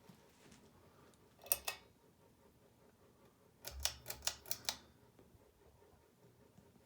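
Sharp mechanical clicks: two close together, then a quick run of about five a couple of seconds later, the first of them with a low thump.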